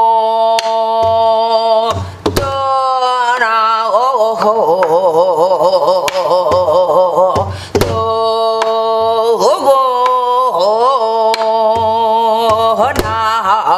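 A woman singing Korean gueum, wordless vocables in the pansori style, holding long notes with a wide wavering vibrato and pausing briefly for breath twice. She accompanies herself with scattered stick strokes on a buk barrel drum.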